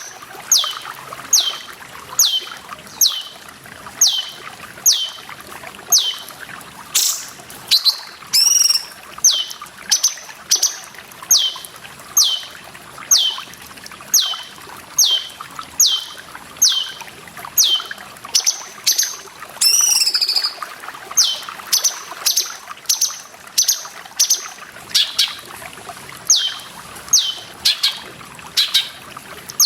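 Cucak cungkok calling a short, high whistle that falls in pitch, repeated about once every 0.7 seconds, with two longer, more complex calls about a third of the way in and again past the middle. Water trickles and pours steadily underneath.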